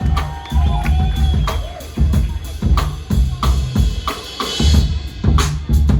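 Live band playing: a drum kit laying down a busy groove of kick drum and snare hits over electric bass, with a few held keyboard or saxophone notes on top.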